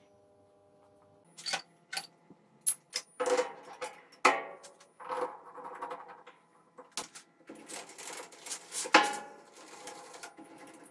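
Steel tool parts clinking and knocking as they are handled and fitted at a metal lathe: a run of sharp metallic taps and clatter with short ringing, busiest in two spells, a few seconds in and again near the end.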